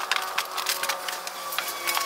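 Wooden boards clattering, a quick, irregular string of sharp knocks as lumber is handled.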